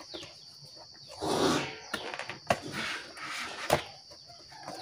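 The cardboard box of a PA horn driver unit being handled and opened. A short rustle of card comes about a second in, then scattered scuffs and two sharp clicks of the flaps.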